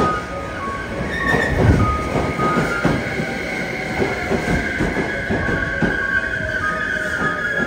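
JR West 273 series tilting electric train pulling slowly into the platform, with a high steady squeal as it brakes and repeated clicks of wheels over rail joints.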